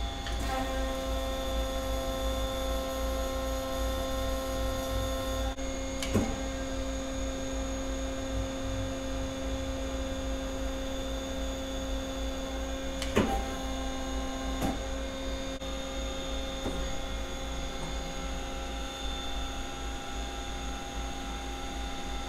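Doosan Puma 300C CNC turning center running under power: a steady electric machine hum with several held tones. Three sharp clunks break it, the loudest about thirteen seconds in.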